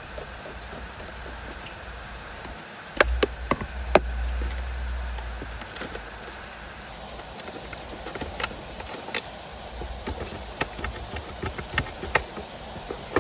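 Irregular clicks and light knocks of hand tools working on plastic interior trim as 7mm bolts around a car's shifter are loosened, with a few louder knocks about three to four seconds in.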